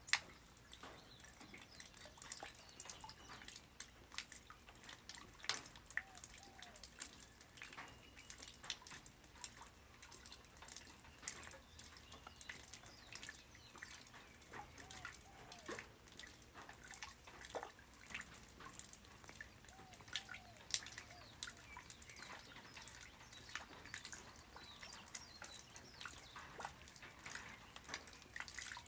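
Light rain falling: a faint, steady patter with many irregular, sharp drop impacts and drips.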